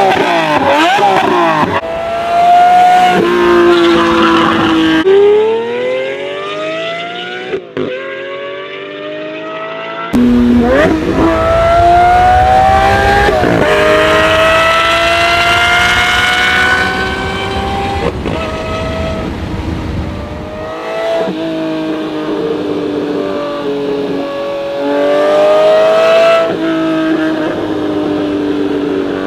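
Lamborghini supercar engine accelerating hard, its note climbing in pitch and dropping back again and again as it shifts up through the gears, across several separate runs spliced together.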